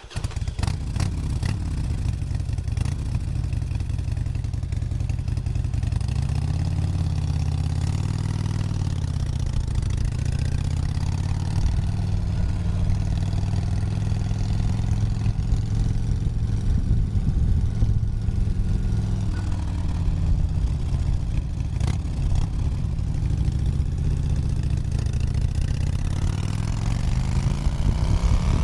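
Harley-Davidson V-twin motorcycle engine starting and then idling, its pitch rising and falling gently a few times as the throttle is eased open and closed.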